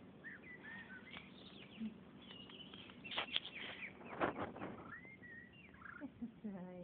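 Baby pigeon (squab) giving thin, short, high squeaky peeps, typical of a squab begging for food. A few brief rustling scuffles come about three and four seconds in.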